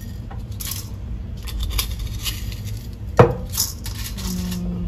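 Granola and dried fruit rattling into a ceramic bowl with small clicks and rustles, and one sharp clink of glass or ceramic about three seconds in.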